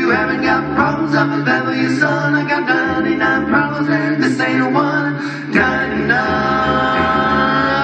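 Male a cappella quartet singing into microphones: layered voices in a rhythmic passage, then a chord held from about three-quarters of the way through.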